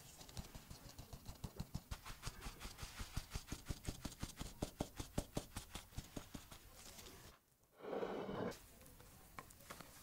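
Metal mesh sieve of flour tapped and shaken by hand over a glass dish: a fast, regular run of light taps, about five a second, as the flour sifts through. It stops about seven seconds in, and a short, louder rustle follows.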